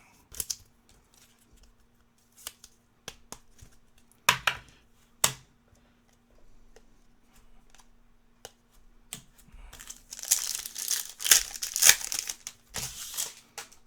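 A trading card pack's foil wrapper being crinkled and torn open, with scattered clicks of card handling before it; the crinkling and tearing is loudest near the end.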